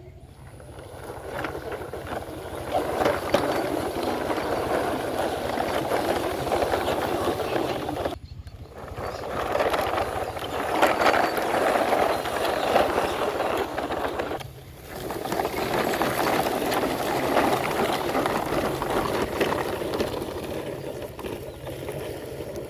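Loaded plastic toy trucks rolling along the ground, their wheels giving a steady grinding rumble, in three long stretches with sudden breaks about eight and fourteen and a half seconds in.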